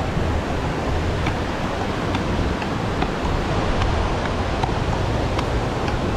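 Steady beach ambience: surf washing on the shore, with wind rumbling on the microphone and a few faint short clicks.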